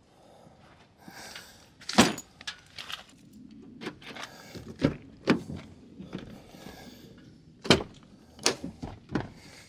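Scattered knocks and clicks, the sharpest about two seconds in, then the latches of a Chevy Silverado extended cab's doors clicking as the doors are unlatched and swung open near the end.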